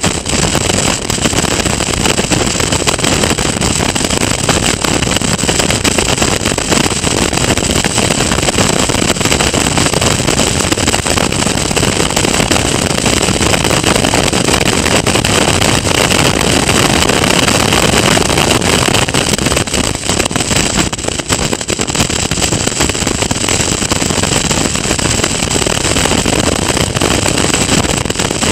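Caterham Seven Academy race car's engine running hard under racing load, heard from an onboard camera on the open car, mixed with wind noise. The sound eases briefly about two-thirds of the way through.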